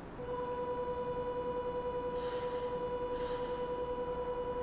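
Station platform departure bell ringing as a steady electronic tone with a rapid flutter for about five seconds, signalling that the train is about to leave. Two brief hisses come partway through.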